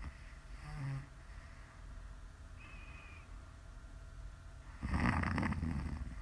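A woman snoring in her sleep: a short low snort about a second in, a faint brief high whistle in the middle, then one loud rough snore about five seconds in lasting about a second.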